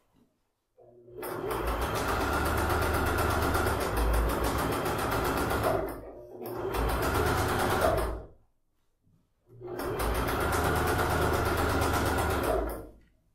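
Domestic electric sewing machine stitching in three runs of a few seconds each, with short pauses between, as a seam is topstitched.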